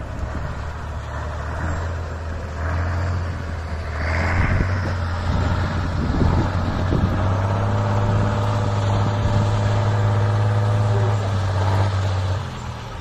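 Engine of a competition trial truck labouring steadily as it climbs rough terrain. It is a deep, even drone that grows louder about four seconds in and drops away shortly before the end.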